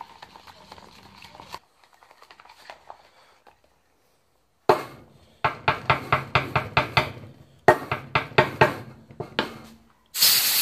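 Quick runs of sharp knocks and taps, about four a second, as tools work at an engine mount on the bench. Near the end a loud steady hiss starts.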